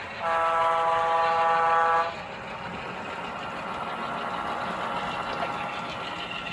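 Model diesel locomotive's sound-system horn giving one long blast of about two seconds, followed by the steady running noise of the model trains.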